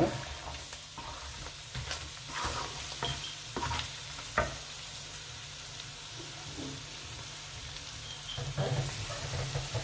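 Curry base frying and sizzling in hot oil in a pan while it is stirred, with the spoon knocking and scraping against the pan several times.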